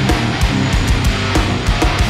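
Hardcore band playing live and loud: distorted electric guitar, bass and drums, with rapid drum hits.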